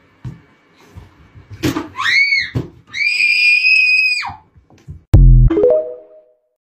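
A thump and a clatter as a gaming chair tips over, then a child screaming twice, high-pitched, the second scream held for over a second. About five seconds in, the TikTok outro jingle comes in: a sudden deep electronic tone with a short rising chime.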